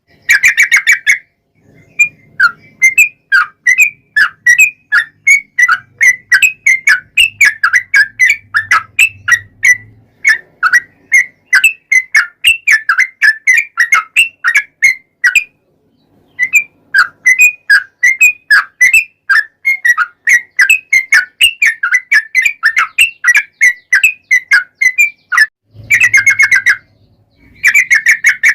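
Yellow-vented bulbul (trucukan) singing a long run of short, quick chirping notes, about four or five a second, broken by a few brief pauses. Recorded song of the kind used as a lure to set other bulbuls calling.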